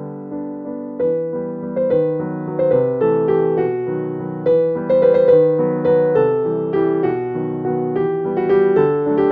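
Background music: piano notes played at a gentle, even pace, each note sounding and fading.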